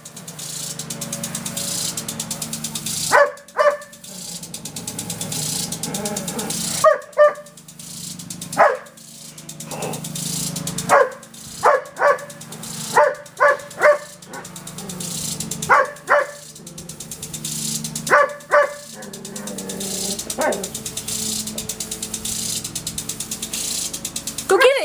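Irish Setter barking at a lawn sprinkler, sharp barks in clusters of one to three every few seconds. Under the barks runs the sprinkler's fast ticking and spray hiss, which swell and fade every few seconds.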